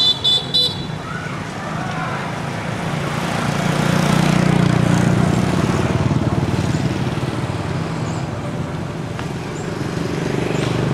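A vehicle engine running nearby, its low hum swelling about four seconds in and easing off, with three quick high-pitched beeps right at the start.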